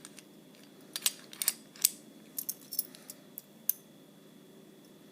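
Light metallic clicks and clinks from a small padlock and its keys being handled, about a dozen sharp separate ticks spread over the first four seconds.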